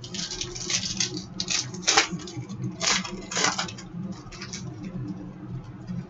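Cardboard trading cards being slid and flicked against each other while a pack is sorted through by hand: a string of short papery swishes and snaps, the sharpest about two and three seconds in, over a low steady hum.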